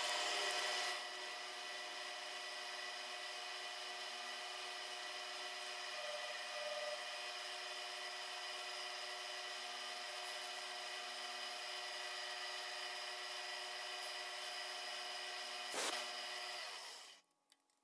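Milling machine spindle running with an end mill fitted, a steady whine made of several fixed tones. There is a sharp click just before it winds down and stops near the end.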